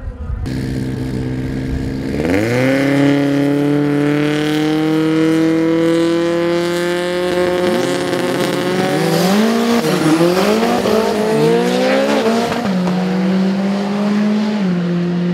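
Drag-race car engines revving and running. Their pitch jumps sharply about two seconds in and climbs slowly for several seconds, then goes through a string of quick rev blips rising and falling, and settles to a steady hold that steps down near the end.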